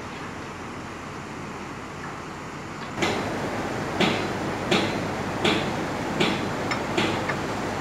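A steady low rumble, then from about three seconds in a hammer striking the steel of a truss bridge under assembly: sharp metallic blows at a regular pace, about one every 0.7 seconds.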